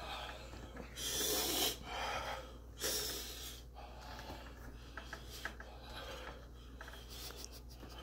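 A man breathing hard through his open mouth in pain from the burn of an extremely hot chili chocolate bar: several heavy, breathy exhales, the longest about a second in, then quieter breathing.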